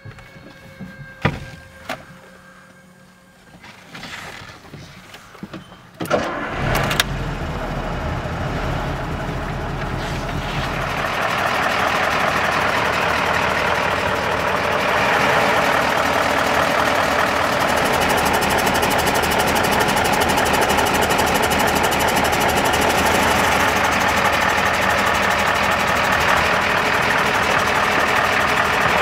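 Mercedes-Benz 1633 S truck's V8 diesel engine starting with a sudden burst about six seconds in, after a few clicks and knocks, then running steadily, louder from about eleven seconds on.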